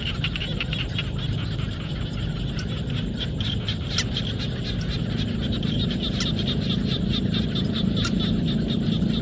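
A chorus of frogs in rice fields, giving fast, dense clicking calls. Over it runs a steady high-pitched hum broken about once a second, with a low rumble underneath.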